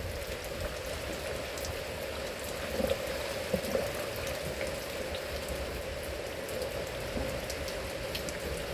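Steady rain, heard from inside a horse stall, with faint scattered drips.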